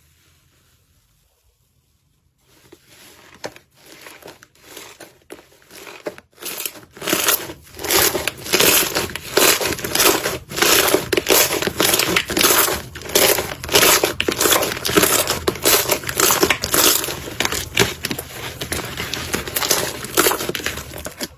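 Slime being worked by hand, making a dense run of crackling and popping noises that starts softly a couple of seconds in and turns loud from about six seconds on.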